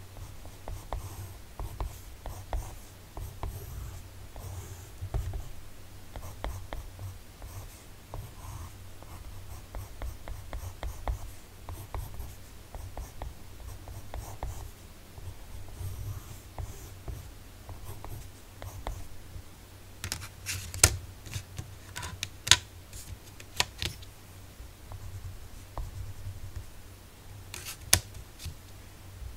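Graphite pencil sketching on sketchbook paper: quick, light scratching strokes, with a few sharp clicks in the second half.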